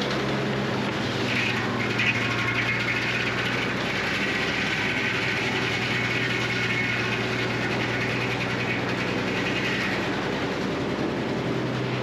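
Frick circular sawmill cutting through a poplar log as the carriage feeds it past the blade: a steady whir of saw and belt-driven machinery over a constant low hum.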